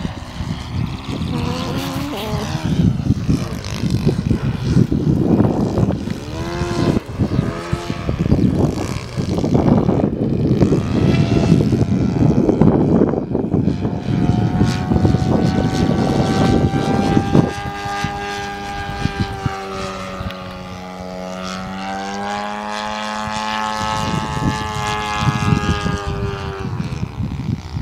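Engine of a Great Planes U Can Do 3D .46 radio-controlled aerobatic model plane in flight, its propeller note gliding up and down with throttle and passes. Heavy wind buffets the microphone through the first half, half burying the engine, which comes through clearly from about halfway.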